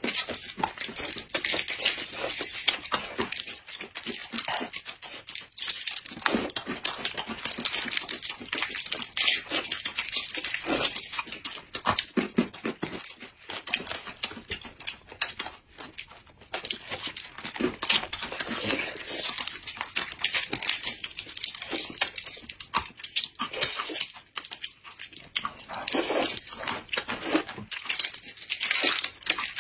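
Small crisp snacks (green spinach mini twists) crunching as they are chewed, with small plastic snack packets crinkling as they are torn open. The crackling is dense and irregular, with no steady sound beneath it.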